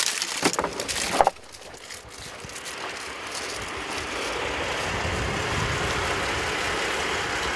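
A vehicle door is opened with a few knocks and rustles in the first second or so. Then a steady rushing noise of wind, with the vehicle idling underneath, builds over a couple of seconds and holds.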